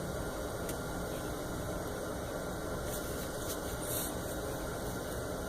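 Home furnace running in the background, a steady even rush of air noise, with a faint brief rustle or click about four seconds in.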